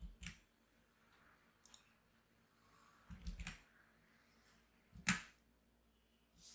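A few sharp clicks at a computer as commands are entered: one at the start, a short cluster about three seconds in, and the loudest about five seconds in.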